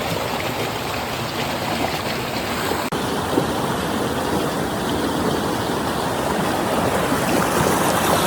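Steady rush of flowing stream water, with a momentary dropout about three seconds in.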